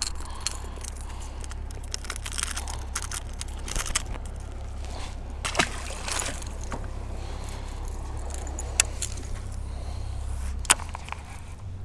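Metallic jingling and clicking of a crankbait's treble hooks and rattles as a small bass is shaken off the lure, with a light splash about halfway through as the fish drops back into the water.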